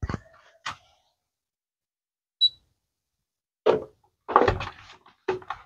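Digital bathroom scale (a Tanita body composition monitor) giving one short, high beep about halfway through as its buttons are pressed. The beep is framed by clicks and by louder bumps and rustles as the scale is handled.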